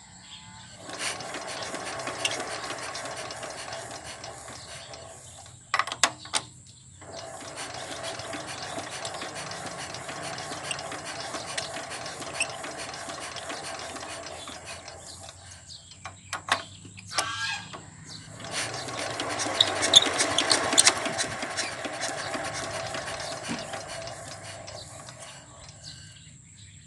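ER550 single-cylinder diesel engine being turned over in three long spells, with sharp clicks in the short pauses between, driving the injection pump so the fuel delivery from its plunger can be checked; the supply proves strong, ruling out the fuel system as the cause of the hard starting.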